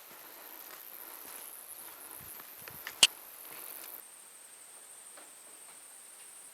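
Steady high-pitched insect chorus, with faint scattered ticks and steps. A single sharp click about three seconds in is the loudest sound. About a second later the chorus changes abruptly to a slightly lower pitch.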